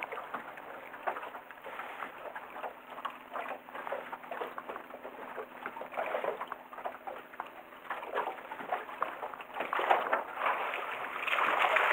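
Choppy water sloshing and slapping irregularly against the hull of a small boat, louder toward the end.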